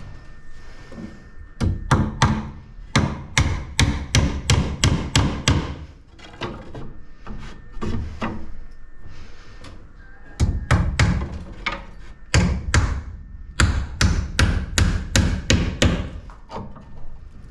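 Hammer driving nails into wooden concrete formwork, in three runs of quick blows, about three a second, with short pauses between.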